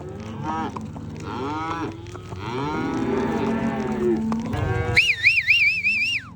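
A herd of beef cattle mooing and bawling, several calls overlapping one after another. Near the end a high, warbling whistle sounds for about a second.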